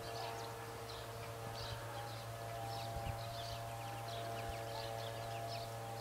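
Birds chirping and twittering in quick repeated calls over a steady electrical hum with a few constant tones.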